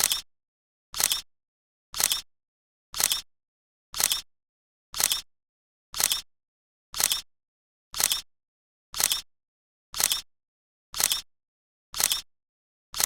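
Camera shutter clicks, a sound effect repeated evenly about once a second, with dead silence between the clicks.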